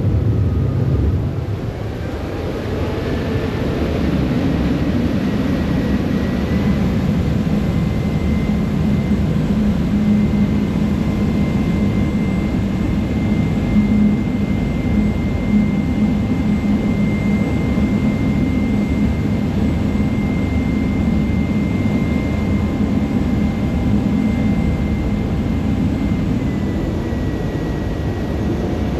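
Harbour ferry's engines droning steadily, with rushing water from the wash around the hull. A faint high whine holds through, stepping up slightly in pitch a few seconds in and back down near the end.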